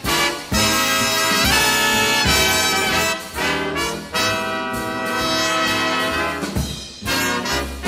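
Music played back from a cassette on a Kenwood KX-5530 auto-reverse cassette deck, from a tape recorded on this deck with Dolby C noise reduction.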